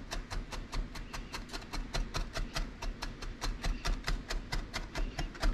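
Knife rapidly mincing shallots on a cutting board: an even run of quick chops, about six a second.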